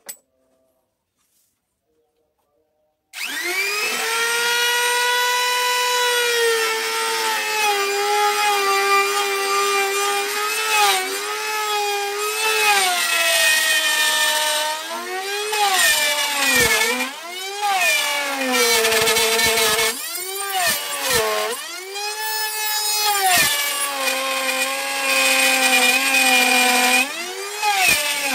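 Electric trim router with an 8 mm straight bit switched on about three seconds in, spinning up to a steady high whine. It then cuts the truss rod channel into a mahogany guitar neck, and its pitch dips again and again as the bit bogs down in the wood and recovers.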